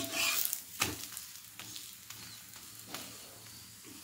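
Metal spatula scraping under a ragi adai on a dosa griddle and turning it over, with a sharp knock just under a second in and a few lighter taps, over a faint sizzle of the adai frying in oil.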